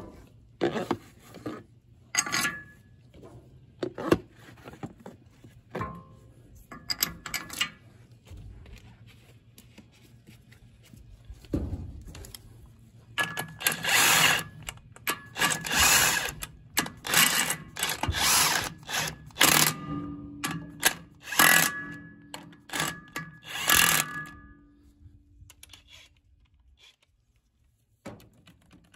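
Scattered metal clicks and taps as bolts are set into a chipper knife, then, from about halfway in, a DeWalt cordless impact wrench running in repeated short bursts, driving the new knife bolts down snug on the drum.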